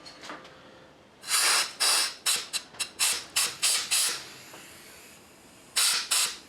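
Compressed-air blow gun blasting chips out of a milled slot. It gives a rapid run of about nine short hisses, then one more blast near the end.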